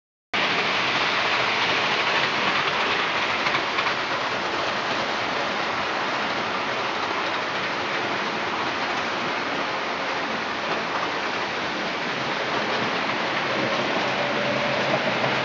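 A steady, even rain-like hiss with no separate events, and a faint tone entering near the end.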